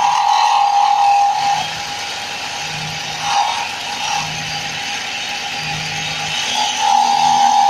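Wood lathe running while a hand chisel cuts the spinning workpiece: a steady high whine over a hiss of cutting, growing louder for stretches near the start, midway and near the end as the tool bites harder.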